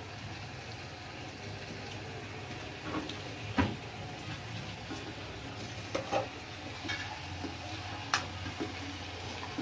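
Raw chicken being handled and rubbed with seasoning in a metal bowl, wet squelching with several sharp knocks and clinks against the metal, the loudest about three and a half seconds in and again near eight seconds, over a steady background hiss of cooking on the stove.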